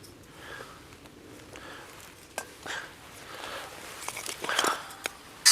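Rustling and crackling as dry kindling and tinder are handled and broken for a campfire, with a few sharp snaps; the sharpest and loudest comes at the very end.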